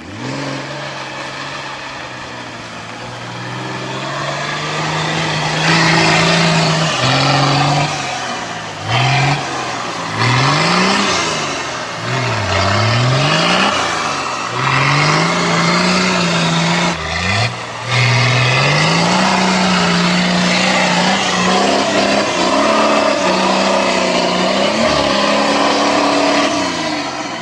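An off-road 4x4's engine revved hard under load, its pitch swinging up and down again and again as the throttle is worked, then held at high revs for the last several seconds, with a rushing noise over it.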